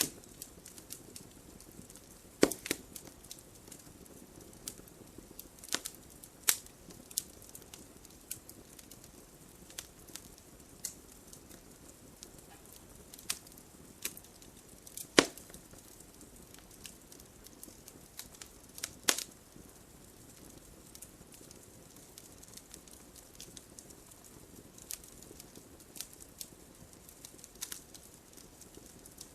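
Wood logs burning in a fireplace: a soft steady hiss of the flames with scattered sharp crackles and pops, a few louder snaps standing out.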